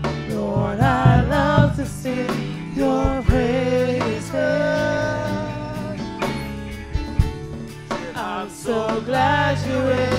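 A female worship singer sings a slow gospel praise song with a live church band, the bass prominent underneath.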